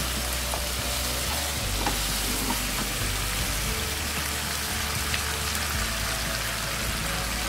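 Chicken in yogurt masala sizzling steadily in oil in a nonstick wok. The meat is well fried, at the end of the bhuna stage.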